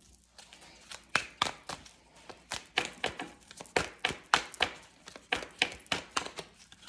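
A deck of tarot cards being shuffled by hand: a quick, uneven run of sharp card slaps and taps, a few each second.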